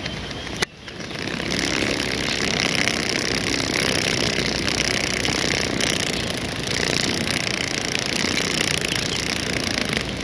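A large insect's wings buzzing close to the microphone: a steady, rough buzz that starts about a second in, after a sharp click, and holds with a slight dip near the middle.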